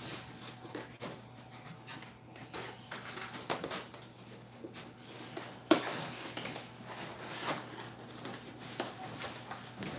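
Cardboard box being handled and opened on a lap: irregular scraping and rustling of cardboard, with one sharp knock a little more than halfway through.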